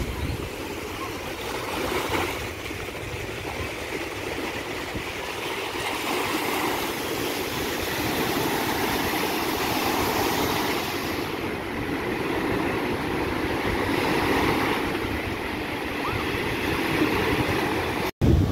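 Small waves breaking and washing up on a sandy beach: a steady rush of surf that swells and eases every few seconds.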